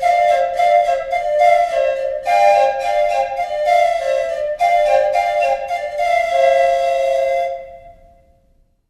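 Skudučiai, Lithuanian pipes played by two players, sounding a sutartinė: two held notes at once, interlocking and changing in a steady rhythm. The music stops about seven and a half seconds in, and the last notes fade away within a second.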